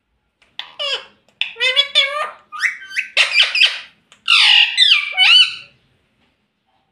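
Indian ringneck parakeet squawking and chattering: a quick run of calls that slide up and down in pitch, starting about half a second in and stopping about a second before the end.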